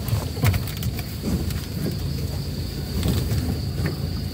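A vehicle engine running at low speed, heard from inside the cabin, as the ambulance creeps along a rough, slippery dirt track, with scattered knocks from the wheels and body. A steady high chirring of insects sounds outside.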